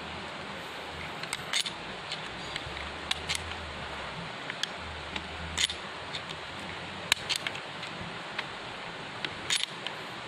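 Scattered light clicks and taps of hands handling gear, at irregular intervals, over a steady background hiss with a faint low rumble at times.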